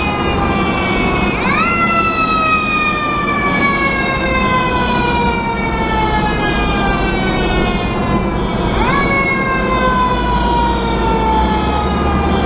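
Fire truck siren sweeping up quickly and then winding slowly down in pitch, twice, over a steady low rumble.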